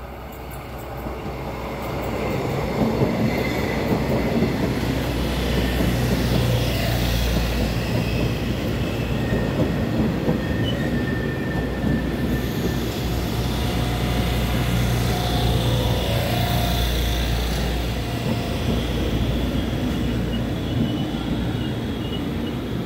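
Train passing close by: steady rumble of wheels on the rails, building over the first two seconds and holding for nearly the whole stretch, with a few faint high thin tones above the rumble.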